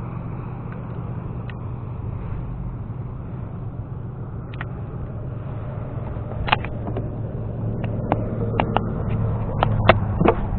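Boat motor running steadily with a low hum, a little louder toward the end. From about six seconds in come a scattering of sharp clicks and knocks as the spinning rod and reel are handled.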